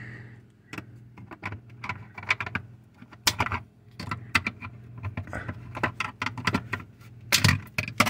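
Irregular plastic clicks, taps and scrapes as the refrigerator's ceiling light housing is pried from its clips with a screwdriver, over a steady low hum.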